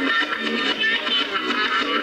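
Music with a busy, quick-moving melody, sounding thin and without bass.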